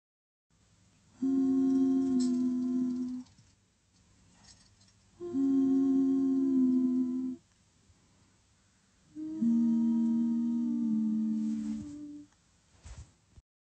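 Intro music of three long held notes, each sounding two tones together and stepping down in pitch partway through, with quiet pauses between them.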